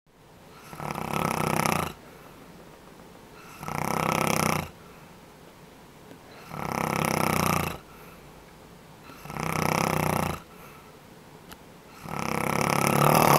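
A sleeping man snoring: five rasping snores, about one every three seconds, each lasting about a second, with the last the loudest.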